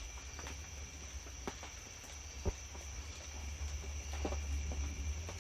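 Night insects chirring steadily in a high, even tone, with scattered light ticks and taps, the sharpest about two and a half seconds in.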